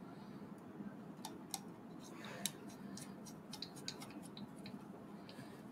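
Small screwdriver clicking and ticking against the metal parts of a T-800 model kit while a tiny screw is driven in. The clicks are faint and irregular, gather from about a second in, and the sharpest comes midway.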